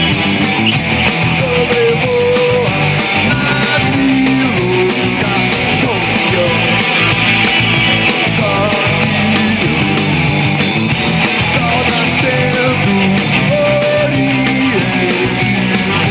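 Rock band playing live: electric guitar over bass guitar and drums, loud and steady.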